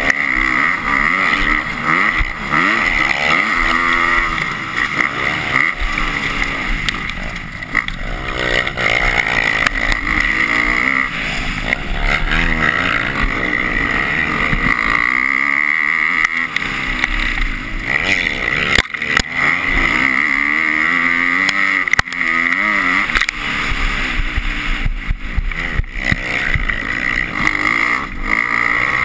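250-class motocross bike engine under race load, its revs rising and falling over and over as the rider accelerates, shifts and backs off over the track. A couple of sharp knocks come about two-thirds of the way through.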